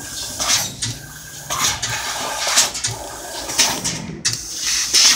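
750 W fiber laser cutting machine cutting thin stainless steel sheet: short hissing bursts about once a second as the head cuts one small hole after another, over a low hum.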